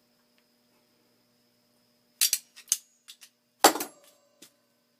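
Metal clicks and clanks from locking pliers (vise grips) being taken off a drilled flat metal bar and set down: two sharp clicks a little over two seconds in, then a louder clank with a brief ring.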